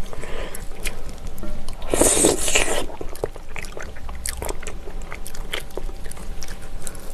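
Close-miked eating sounds of braised ox knee: wet chewing and biting, with many small mouth clicks and one louder, longer burst of mouth noise about two seconds in.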